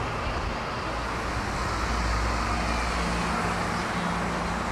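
Road traffic: a motor vehicle's engine rumbling low on the street, swelling about a second in, with a steady low hum joining about halfway.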